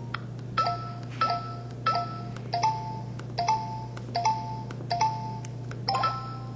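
Samsung SPH-E2309 mobile phone keypad dialing tones: about nine key presses, each a short click and a two-note beep, about one every 0.7 seconds, with a steady low hum underneath.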